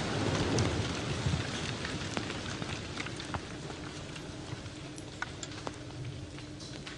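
Aftermath of a large bomb explosion: the low rumble of the blast slowly dies away while scattered ticks and small impacts patter down like rain, the sound of debris falling back to earth.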